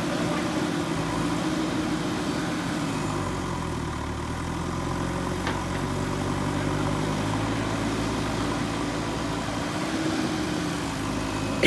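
Backhoe loader's diesel engine running steadily, its pitch dipping and rising a little as the engine speed changes.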